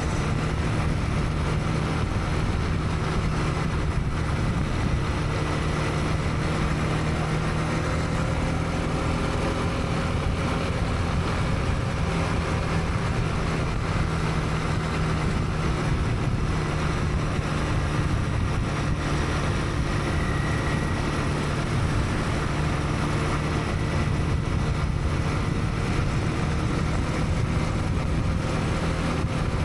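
Honda CB300R's single-cylinder engine running at a steady, even speed while riding, with road noise around it.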